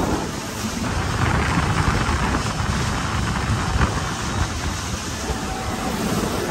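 Wind rushing over the microphone with the steady water and engine noise of a small boat under way at speed across open water.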